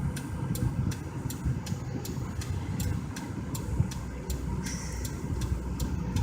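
Car turn-signal indicator clicking steadily, about three ticks a second, over the low rumble of the stopped car and traffic heard from inside the cabin.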